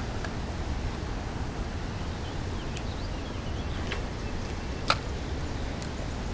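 Spinning rod and Shimano Stradic CI4+ reel being handled for a cast: a few sharp clicks, the loudest about five seconds in, over steady low outdoor background noise, with a few faint chirps in the middle.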